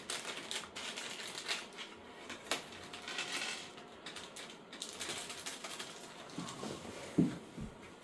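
Crinkling of small clear plastic packets and scattered light clicks of small hardware being handled and set on a wooden table, with one louder knock about seven seconds in.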